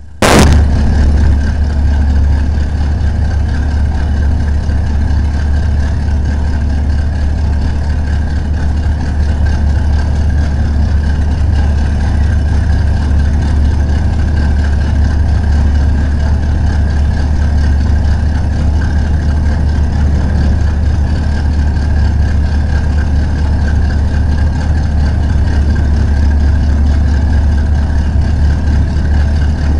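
Dragster engine idling steadily, a loud low running hum that holds even for the whole stretch.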